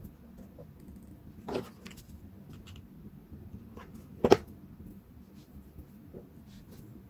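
A hot glue gun knocking against a tabletop as it is handled and set down, with a few light taps and one sharp knock a little past four seconds in.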